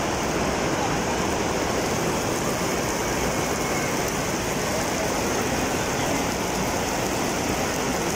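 Rain pouring down steadily onto a wet stone courtyard, an even unbroken hiss.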